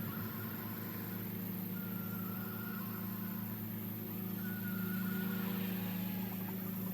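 An engine running steadily at a constant speed, with three short high-pitched notes over it.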